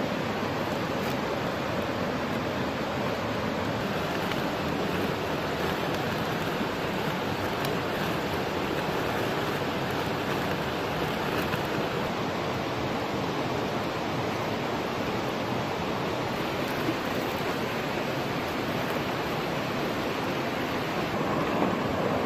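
Fast-flowing river rushing steadily over rocks.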